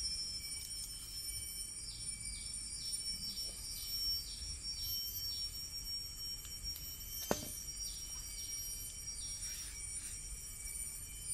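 Steady high-pitched drone of insects, with a chirp repeating about twice a second for several seconds. A single sharp click comes about seven seconds in.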